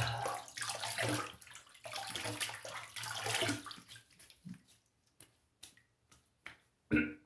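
Hands splashing water onto the face at a sink, in several surges over about four seconds, then a few scattered drips and small clicks.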